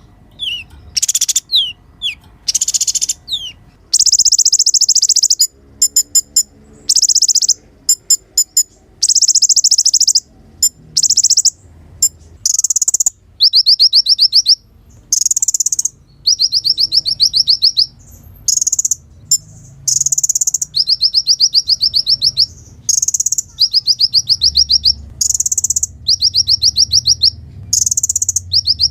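Kolibri ninja sunbird singing: bursts of very fast, high trills about a second or two long, one after another with short gaps. A few short falling whistles come in the first few seconds.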